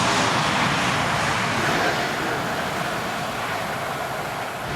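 Boeing 787 Dreamliner's jet engines at takeoff power, a steady broad rush that slowly fades.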